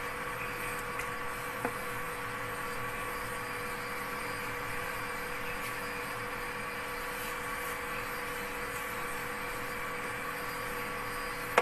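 A steady mechanical hum with a faint whine over chicken pieces boiling hard in broth and being turned with a spatula; one light click of the spatula against the pan about two seconds in.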